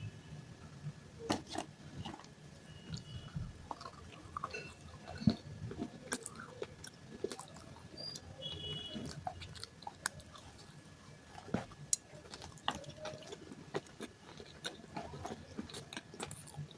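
Broken baked clay pot pieces being bitten and chewed close to the microphone: irregular sharp crunches with softer grinding between them.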